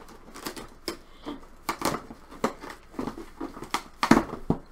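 Cardboard box and its packaging being handled and rummaged through: irregular rustles, scrapes and knocks, with a louder knock about four seconds in.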